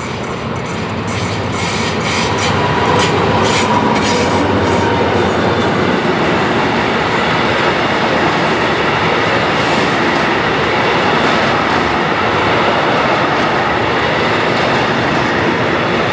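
DB class 212 diesel-hydraulic locomotive passing close by with its engine running, then a train of flat wagons loaded with long rails rolling past. The wheels make a steady rolling rumble, with a quick run of clicks over the rail joints in the first few seconds.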